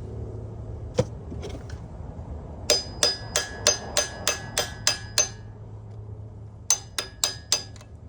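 Ringing metal-on-metal taps on a tight engine main bearing cap to work it loose: one tap, then a quick run of about nine at roughly three a second, and four more near the end.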